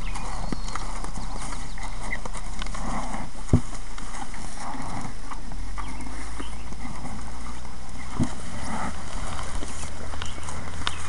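Steers feeding from a plastic tub, their muzzles knocking and bumping the tub in a scatter of small clicks and knocks. Two sharper knocks stand out, about a third of the way in and again past the middle.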